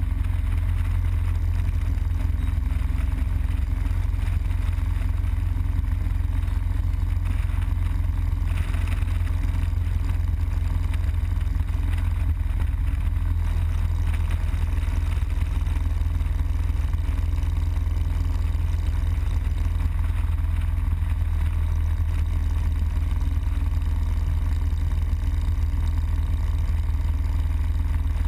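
Harley-Davidson Road Glide Custom's V-twin engine running steadily at highway cruising speed, mixed with constant wind and road noise on the moving bike.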